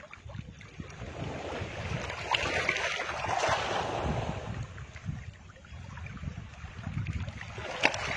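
Wind buffeting the microphone over the wash of river water, with a short click near the end.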